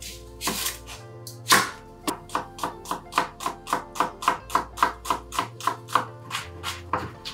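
Santoku knife chopping a red onion on a bamboo cutting board: quick, even strokes, about four a second, after one louder cut about a second and a half in. Background music plays underneath.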